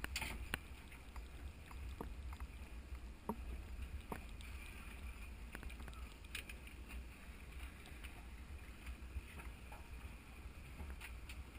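Faint, muffled sounds aboard an aluminium dive boat at rest: a steady low rumble with scattered light knocks and clinks from gear and hull.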